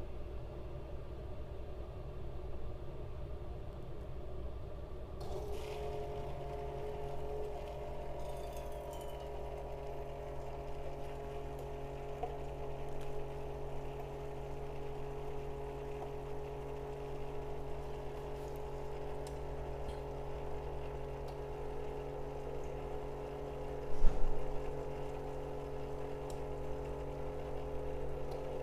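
Single-serve capsule coffee maker's water pump starting up about five seconds in and humming steadily as hot water pours through the capsule into the cup: the heat-up is done and brewing has begun. A single sharp knock sounds near the end.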